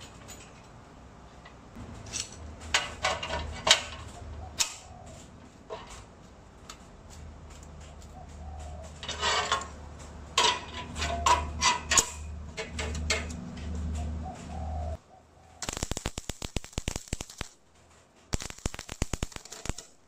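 Metal parts and screw clamps being handled on a steel welding table, with scattered knocks and clanks. Then, about three-quarters in, two short bursts of MIG welding crackle as the joint between the two tubes is tack-welded.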